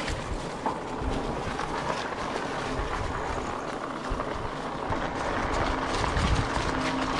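E-bike riding over a wooden bridge deck and onto a leaf-covered dirt trail: tyre rolling noise with rumbles, small rattles and clicks, and wind on the microphone.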